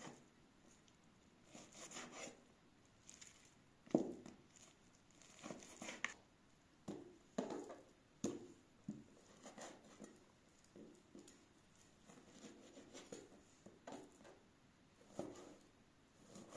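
Knife and cleaver blades knocking and tapping on a plastic cutting board as raw meat and fat are cut and trimmed, in irregular taps with a few louder knocks, the loudest about four seconds in.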